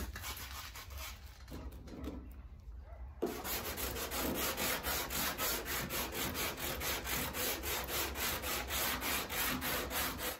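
Hand sanding of Duraglass filler on a steel truck door with a sanding block and sandpaper. Light, uneven scraping for the first three seconds, then steady back-and-forth rasping strokes, about four a second.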